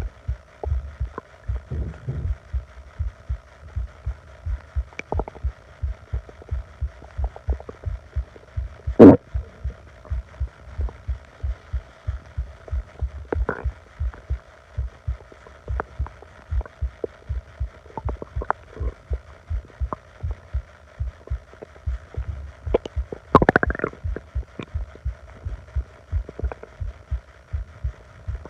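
Upset stomach gurgling over a steady low pulse-like thumping. There is a short sharp gurgle about a third of the way in, which is the loudest sound, a smaller one about halfway, and a longer gurgle near the end.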